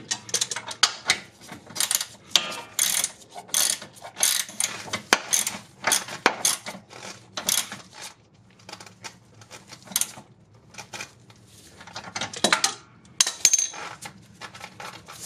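Metal hand tools clinking and clicking, with quick ratchet-like clicks, as wrenches and sockets are worked on the suspension bolts. The clicks come thick and irregular, thin out about halfway through, then pick up again near the end.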